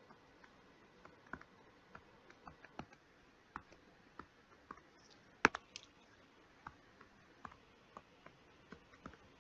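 Stylus tapping on a tablet screen while handwriting: light, irregular clicks, with one sharper click about five and a half seconds in.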